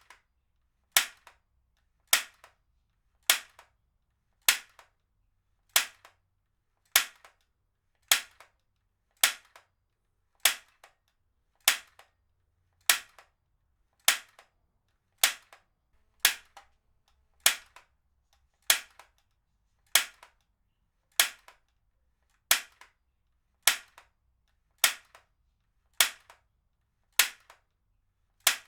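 Heavy-duty stapler firing again and again at an even pace, about one sharp snap every second and a bit, each followed by a much fainter click.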